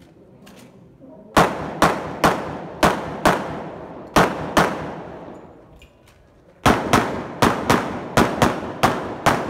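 Handgun fired in quick strings: five shots starting about a second in, two more a little later, then a fast run of about ten shots near the end. Each shot is a sharp crack with a short echo trailing after it.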